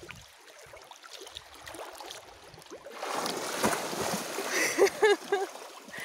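Seawater splashing and sloshing close by as people swim, coming in loud about halfway through, with a voice near the end.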